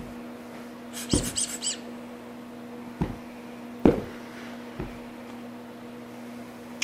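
A squeaky plush toy squeaking under a dog's chewing, in a quick run of about five squeaks about a second in. A few thumps follow at intervals, the loudest just before the four-second mark.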